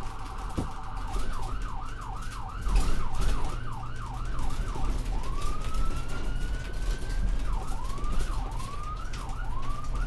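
Electronic ambulance siren cycling through its patterns. It starts with a very fast warble, then gives a yelp sweeping up and down about three times a second. About five seconds in it changes to one long, slowly rising wail, then returns to quicker up-and-down sweeps. A steady low rumble runs underneath.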